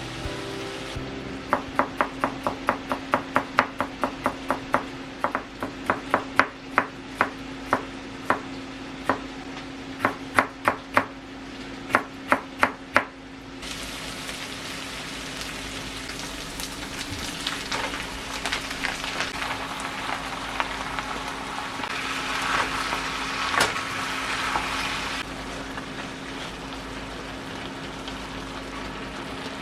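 Cooking for beef chili: a run of sharp knocks, quick at first and then irregular, for about twelve seconds, then food sizzling as it fries in the pan, crackling more around twenty seconds in. A steady hum runs underneath.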